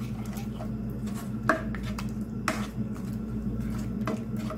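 A spatula stirring a thick yogurt-and-spice paste in a non-stick pan, with four sharp scrapes or taps of the spatula against the pan, over a steady low hum.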